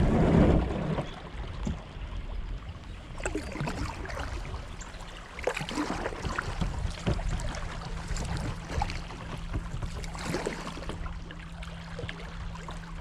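Kayak paddle strokes dipping and dripping in the river, a scatter of small splashes and trickles, with a louder rushing swell in the first second.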